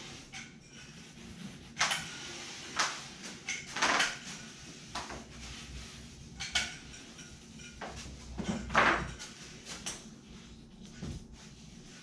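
Scattered clicks, knocks and light clatter, irregular and a second or so apart, from handling a glue applicator and tools while laying a bead of Liquid Nails construction adhesive. A longer scraping rustle comes about two-thirds of the way in.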